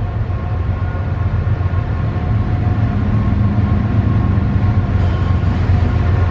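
Approaching CSX freight train's lead diesel locomotive: a deep, steady engine rumble with a few steady tones on top, growing gradually louder as it nears.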